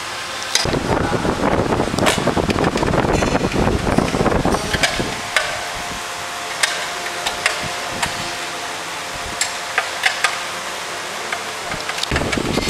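Sharp metal clinks and taps from a wrench working the bolts of a motorcycle's chrome rear carrier. A dense stretch of handling noise fills the first few seconds, then scattered clicks sound over a steady hum.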